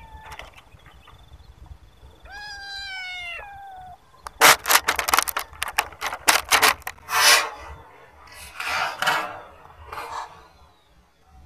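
A hungry stray kitten begging for food gives one drawn-out meow that falls in pitch, about two seconds in. It is followed by a loud, rapid run of sharp clicks and crackles, then a few shorter rustling bursts.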